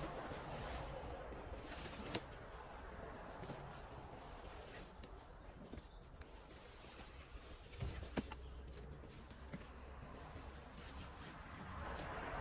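Faint rustling and scuffing of a garden hose being wound by hand onto a wall-mounted metal hose hanger, with a few light knocks.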